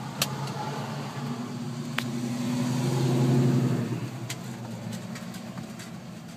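A 1969 Dodge Charger's engine running as the car drives past, a low hum that swells to its loudest about three and a half seconds in and then fades away. Two sharp clicks come early on.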